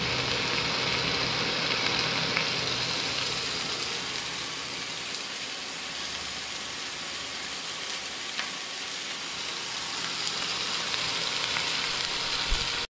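Fish pieces frying in a pan: a steady oil sizzle with an occasional faint pop.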